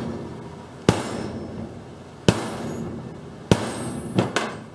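Rubber mallet blows driving a mower deck spindle assembly together with a large socket: three firm strikes about a second and a half apart, each with a short ring, then two lighter quick taps near the end.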